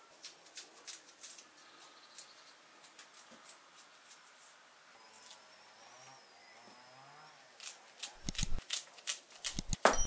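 A small kitchen knife clicking as food is cut by hand over a stainless-steel pot, with light taps and clinks against the pot. Sharper knocks and clinks come in quick succession near the end.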